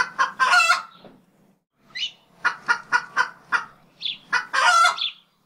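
Short clucking calls like a chicken's: a few near the start, a quick run of about five short clucks near the middle, and a longer, louder call near the end.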